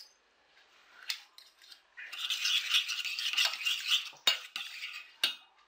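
Metal spoon stirring crème fraîche and sugar in a stainless steel saucepan: a scraping swish for about two seconds starting about two seconds in, then two sharp clinks of the spoon against the pan.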